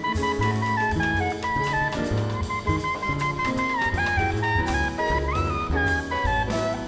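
Live jazz band: a horn plays a flowing melodic line over a drum kit and a low accompaniment.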